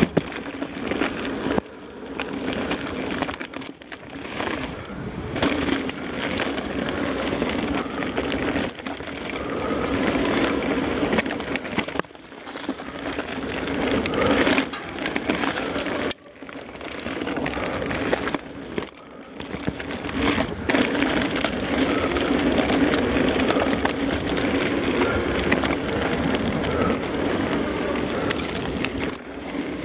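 Santa Cruz mountain bike ridden along a muddy dirt trail: a continuous rumble of knobby tyres on the ground with the bike rattling, heard through a handlebar-mounted camera. The noise dips briefly several times.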